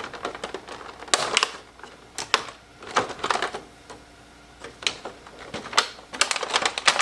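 Packaging of a toy RC helicopter's remote control being opened by hand: scattered clicks, crackles and rustles in short bursts, busiest near the end.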